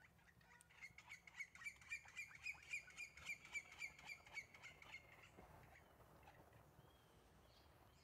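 Green-barred woodpecker (Colaptes melanochloros) giving its long call: a rapid, even series of sharp notes, about four a second. The series starts about a second in, runs for about four seconds and then fades out.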